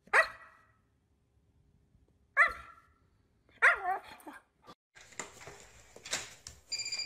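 Siberian husky giving three short, loud barks, a couple of seconds apart. Then a door latch clicks as a door is opened, followed by a short high beep.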